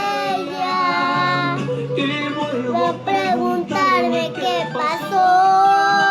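A child singing a Spanish song over backing music, the voice moving through short sung phrases and holding one long note about five seconds in.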